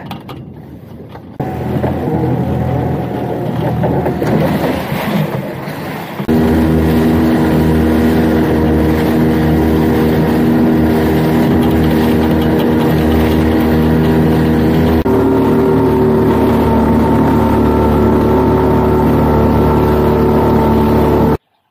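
Small boat's outboard motor running with wind and water rush; about six seconds in it settles into a steady engine note at constant revs. The sound cuts off abruptly near the end.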